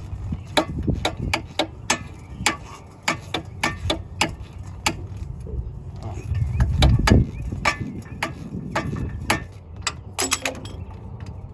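Repeated sharp metal clicks and knocks, a few each second, over a low rumble, as an old wheel hub assembly is worked loose with hand tools.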